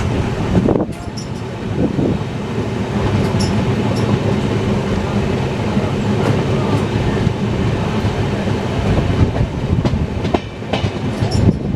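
Passenger train running along the track, heard from on board: a steady loud rumble and rush with scattered clicks and clatter from the wheels over the rails.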